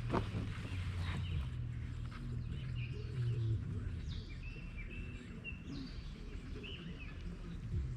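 Birds chirping in repeated short calls over a steady low hum, with a brief sharp sound at the very start.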